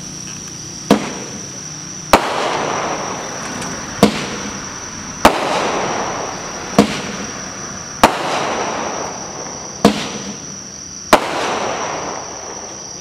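A 48-shot, 500-gram consumer firework cake firing a steady sequence of sharp shots, one every one to two seconds, about nine in all. A hissing rush of noise spreads after several of the reports.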